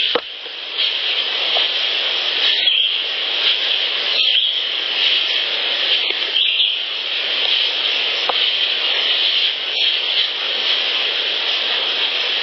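Steady high-pitched chorus of wildlife by water, with a few faint clicks and ticks over it, one right at the start and one about eight seconds in, which the uploader takes for subtle sounds of a sasquatch at the recorder.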